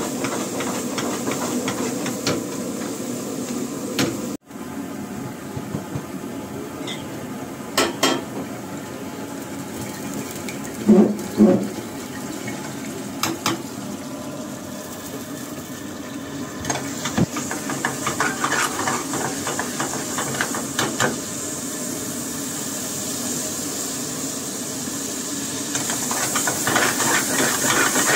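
Food sizzling in a steel kadai over a high-flame commercial gas burner, a steady hiss. A few knocks of the steel ladle against the pan come through, two loud ones close together midway, and the sizzling grows louder near the end as flames flare in the pan.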